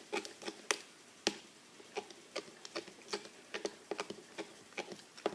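Irregular soft clicks and taps of a mixing tool stirring glue and Tide in a small container, as the mixture starts to thicken into slime.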